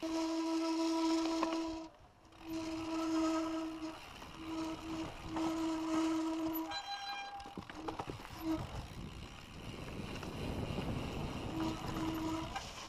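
A mountain bike's rear hub freewheel buzzing steadily while the bike coasts downhill, cutting in and out in stretches of a second or two as the rider pedals or slows, over the rumble of tyres on a dirt trail and wind noise.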